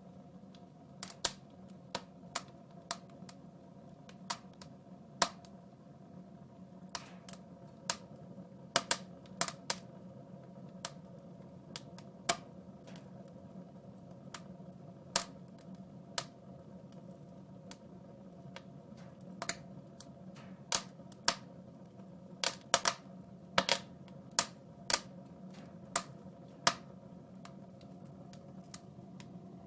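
Wood fire crackling in a fireplace: irregular sharp pops and snaps, sometimes in quick clusters, over a steady low hum.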